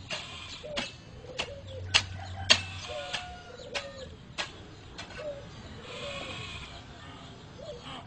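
An animal's short, low calls, repeating about twice a second, with sharp clicks in between.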